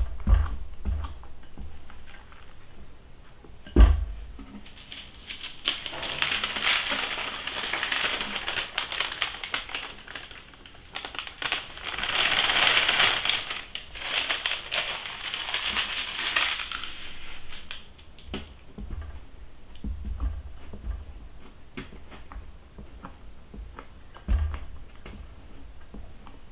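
Spatula scraping and thudding against a glass mixing bowl as batter is folded, with a sharp knock about four seconds in. From about five seconds to about eighteen, a dense crackling rustle of cocoa powder and flour being sifted through a mesh sieve over the batter, after which the spatula folding resumes.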